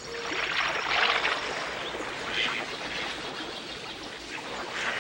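Water splashing and trickling as cartoon ducks paddle through a stream, with a few louder splashes.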